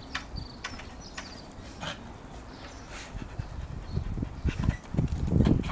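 Staffordshire bull terriers at a wooden garden fence, whimpering: a few short high whines in the first second or so, and a louder burst of low noise near the end.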